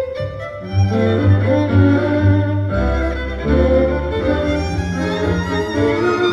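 Live string ensemble (violins, cello and double bass) playing a tango: bowed melody over long held bass notes, with a short break in the bass partway through.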